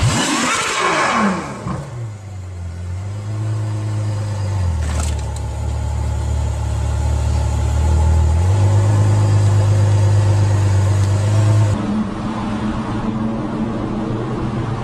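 Ferrari F12berlinetta's V12 engine running at low revs, its deep note stepping up and down in a few distinct levels. It opens under a falling sweep, and about three-quarters of the way through it gives way to other traffic noise.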